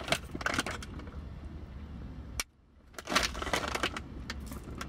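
Crackly handling noises, then crunching as a crumbly double chocolate chip cookie is bitten into, with a brief break to near silence about halfway through.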